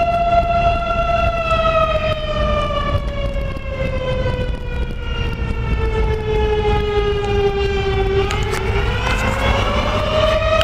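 Outdoor civil-defense-type warning siren sounding a fire call with a long wail. Its pitch sinks slowly for about eight seconds, then climbs back up near the end.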